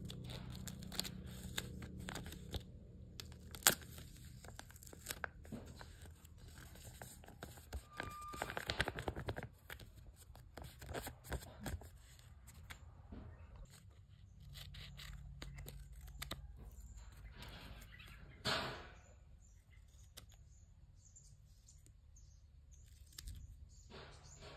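Paper and tape being handled: scattered small crinkles, clicks and rustles, with a busier patch around nine seconds and one louder tearing rustle about eighteen seconds in.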